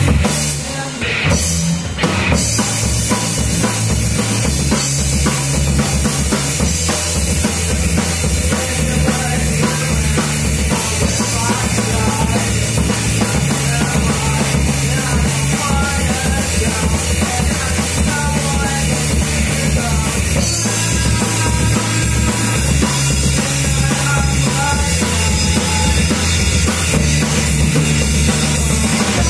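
Live rock band playing loud: drum kit, electric bass and electric guitar, with steady held bass notes. A short break in the drumming and a dip in level about a second in, then the full band carries on.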